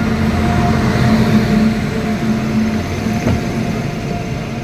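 WAP-7 electric locomotive passing close by on the adjacent track: a loud rumble of wheels and running gear with a steady hum, loudest about a second in and easing as the locomotive's end and the first coach go by, with one sharp knock about three seconds in.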